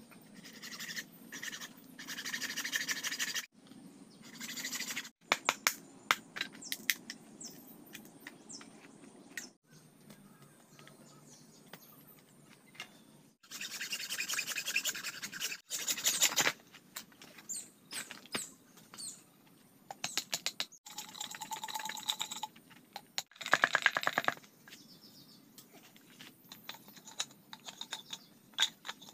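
Hacksaw cutting through green bamboo tubes: several spells of rapid back-and-forth rasping strokes, each breaking off abruptly, with lighter scrapes and knocks between them.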